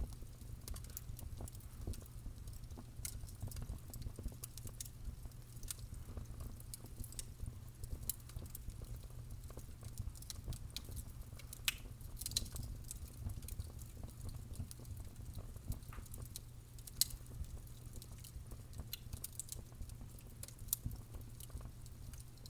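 Fire crackling, with frequent sharp pops and snaps at irregular intervals over a steady low rumble.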